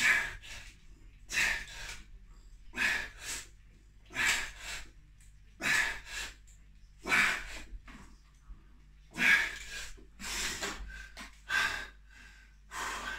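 A man's heavy, forceful breathing under strain: sharp, noisy breaths about every second and a half, some in quick pairs, in rhythm with seated overhead presses of 18.5 kg dumbbells during a high-rep, low-rest set.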